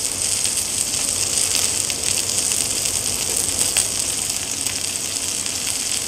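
Tomahawk beef steak sizzling steadily as its edge sears on a very hot ridged grill pan, with small crackles and spits throughout.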